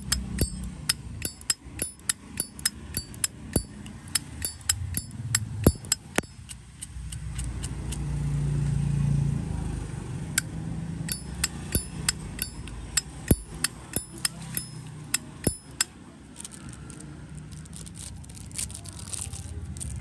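Zippo lighter's hinged lid flicked open and snapped shut over and over: sharp metallic clicks with a short ring, in two runs with a pause in the middle. A low hum swells in the background around the middle.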